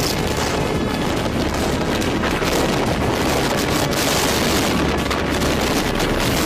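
Strong storm wind buffeting the phone's microphone: a steady, loud rushing noise with low rumble.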